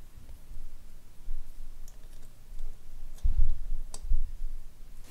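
Light metallic clicks of a small Allen key working the pulley screws in a two-stroke cylinder's power-valve box, with a couple of dull low thumps from handling the cylinder about three and four seconds in.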